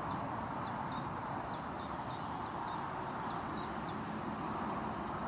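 A small bird singing a rapid series of short, high, down-slurred notes, about three a second, that stops about four seconds in, over a steady outdoor hiss.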